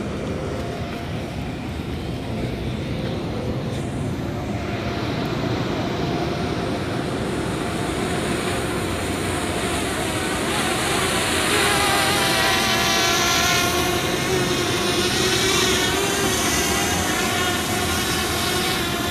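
Camera drone's propellers buzzing as it descends to land, the whine of several pitches coming in and growing louder from about halfway through over a steady low rumble.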